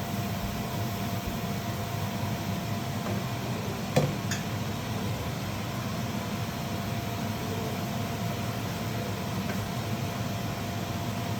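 A steady low machine hum with a faint steady tone above it, and a single sharp knock about four seconds in.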